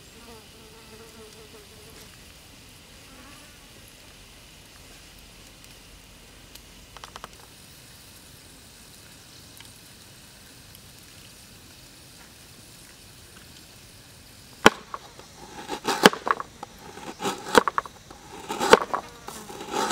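Quiet background with a faint steady buzz and hiss, then, about three-quarters of the way through, a cleaver slicing ginger against a wooden cutting board: a run of sharp knocks in an uneven rhythm.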